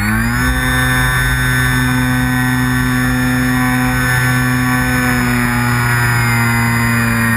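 Brushless electric motor and propeller of a Parkzone Radian Pro RC glider running at a steady speed, heard from a camera mounted on the plane, with wind rushing over it. The pitch rises just at the start and settles into an even whine.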